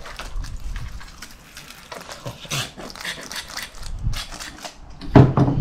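A plastic lime-juice squeeze bottle being squeezed out: a run of irregular wet squirts and splutters as it empties. A louder, pitched sound comes near the end.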